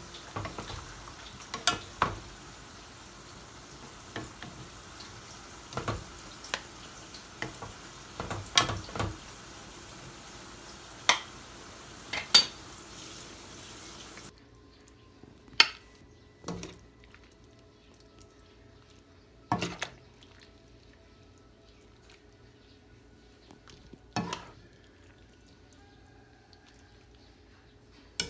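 Food sizzling in a pan while a utensil stirs it, with sharp clanks of metal on the pan. About halfway through the sizzling stops suddenly, leaving only occasional clanks of utensils and dishes.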